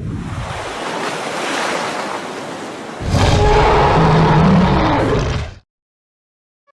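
Water surging and splashing as a giant kaiju surfaces, then about three seconds in a deep, loud monster roar that cuts off suddenly.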